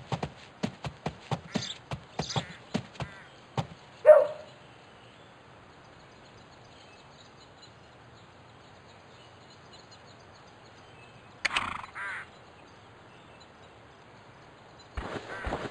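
Horse hooves clip-clopping on hard ground, a quick even run of beats for the first three and a half seconds. About four seconds in comes a single short, loud call, and around twelve seconds two more short calls.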